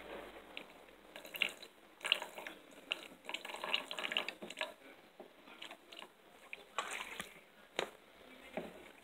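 Household cleaning ammonia squirted from a plastic squeeze bottle into a plastic cup of ferric chloride solution: faint, irregular spurts of liquid splashing and dripping, with bubbling as the mixture foams.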